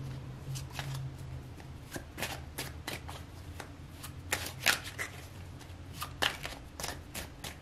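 A tarot deck being shuffled by hand: a run of irregular, quick card clicks and flicks, with a couple of louder snaps past the middle, over a faint steady low hum.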